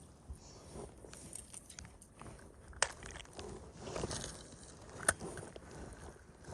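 Footsteps crunching and scuffing in snow, uneven and fairly quiet, with two sharp clicks about three and five seconds in.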